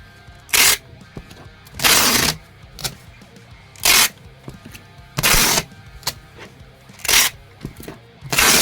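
Six short, loud rips of packing tape pulled off a roll, each about a third to half a second long, coming roughly every second and a half, over quiet background music.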